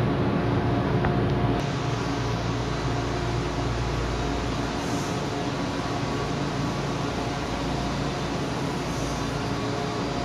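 Steady hum of an electric train's air conditioning and onboard equipment. Inside the car it is a low drone with several steady tones; about one and a half seconds in it changes suddenly to a flatter, steady rush beside the train.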